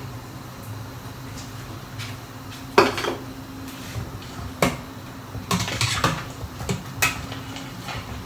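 Spoon knocking and scraping against a stainless steel stockpot while broth is stirred: a handful of sharp metallic clinks, the loudest about three seconds in and a quick cluster around six seconds, over a steady low hum.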